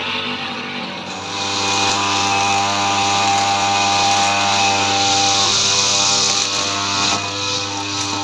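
Engine-driven brush cutter running steadily at high revs while cutting grass. It dips briefly about a second in, then picks back up, with a smaller dip near the end.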